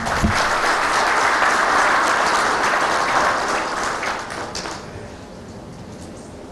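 Audience applauding, a dense round of clapping that dies away about five seconds in.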